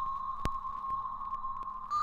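A steady, high-pitched electronic tone held on one pitch, stepping slightly higher near the end, with a single sharp click about half a second in.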